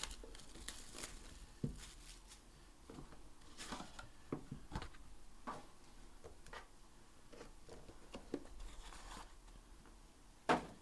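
Faint handling of a cardboard trading-card hobby box and its plastic wrap: scattered rustles and small clicks, then a sharper knock near the end as the small inner box is set down on the mat.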